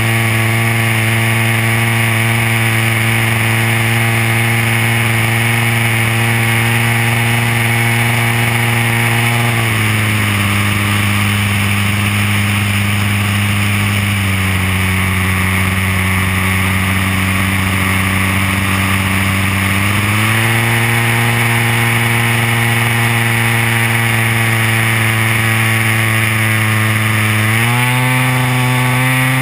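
DLE 30cc single-cylinder two-stroke gas engine of an RC DHC-2 Beaver model plane, heard from the onboard camera, running steadily. About ten seconds in it is throttled back, drops a little lower a few seconds later, comes back up around twenty seconds in, and rises again near the end.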